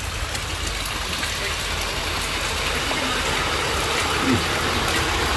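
Vehicle engine running with a steady hum under a continuous wash of rushing water noise that grows slightly louder. Faint voices come in near the end.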